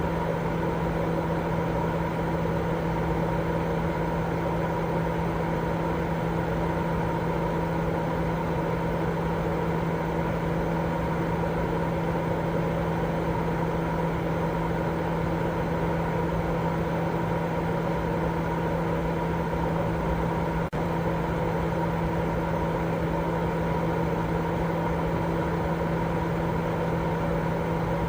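Steady sleep white noise with a machine-like hum: an even rushing noise weighted toward the low end, with a few constant hum tones running through it. A very brief dropout comes about three quarters of the way through.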